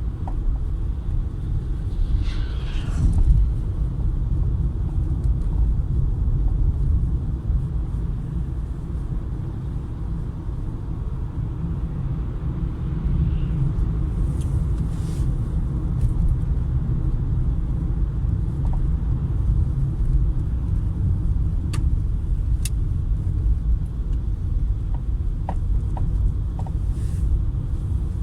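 Peugeot 408 car moving with a steady low road rumble, and a few short knocks and clicks in the second half: the knocking from the front end that the owner is trying to trace.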